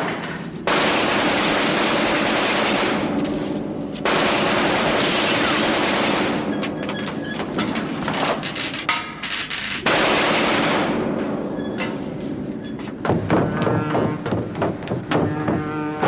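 Three long bursts of automatic gunfire in a shootout, each starting abruptly and dying away over a few seconds, followed by a quieter stretch of rapid clatter in the last few seconds.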